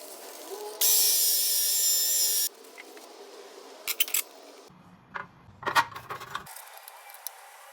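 Dent-repair tool sounds on a motorcycle gas tank. A loud hissing, whining tool sound about a second in lasts a second and a half and stops abruptly. After it come a few light taps and knocks on the metal tank.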